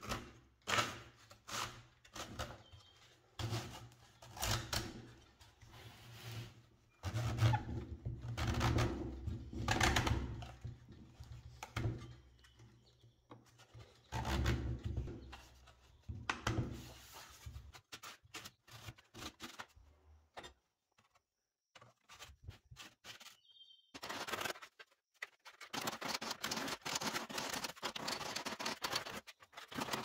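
Irregular knocks, thuds and scraping as flat panels are slid and pressed into a wooden frame fitted with zinc channels. Near the end, a quick run of light hammer taps on a zinc angle strip held in a vise.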